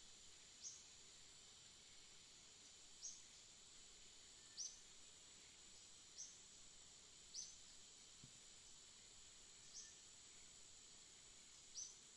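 Faint birdsong: a single short, high chirp repeated about every one to two seconds, seven times, over a steady high-pitched hiss.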